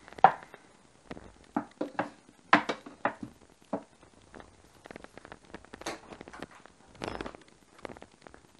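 Kitchen knife knocking on a wooden cutting board while cutting soft warabi mochi: a run of irregular knocks and taps, the loudest just after the start, with a few lighter kitchen clatters later.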